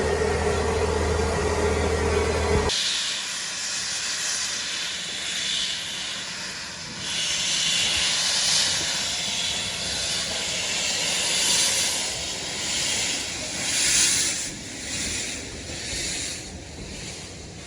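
A steam locomotive letting off steam: a loud hiss that swells and fades in uneven surges. It is preceded by a steady low hum that cuts off abruptly about three seconds in.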